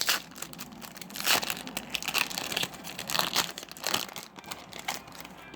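Foil wrapper of a Yu-Gi-Oh! booster pack crinkling and tearing as it is ripped open by hand. It comes as irregular crackly rustles, loudest at the start and about a second in.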